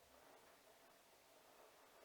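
Faint, steady sound of a Siemens iQ700 front-loading washing machine working early in a delicate/silk cycle, barely above silence.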